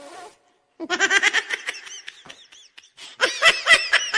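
A person laughing in rapid, pulsing bursts: a first run about a second in, then a louder run near the end.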